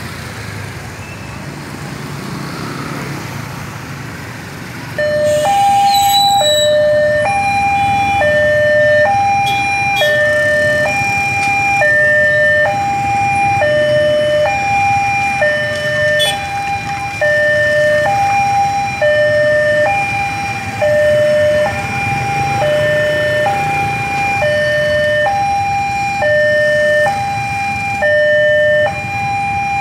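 Railway level-crossing warning alarm starting about five seconds in: a loud electronic two-tone signal alternating high and low about once a second, warning that a train is approaching. Before it, only the low rumble of passing motorbike traffic.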